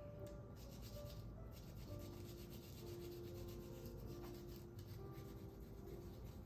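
Faint repeated scratchy rubbing strokes of a peeled garlic clove, held on a fork, scraped over the cut face of a crusty baguette slice.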